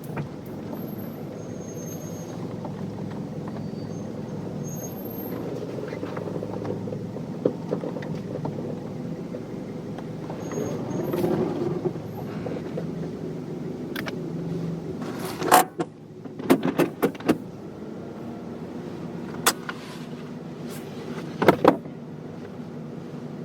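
Car engine running steadily at low speed while parking, then a series of sharp clicks and knocks from the car in the second half: a loud one about two-thirds of the way in, a quick cluster right after, one more, and a double click near the end.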